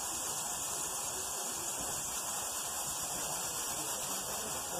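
Aluminium pressure cooker on a gas stove releasing steam through its weighted whistle: a steady hissing whistle, the sign that the cooker is up to pressure and counting its whistles.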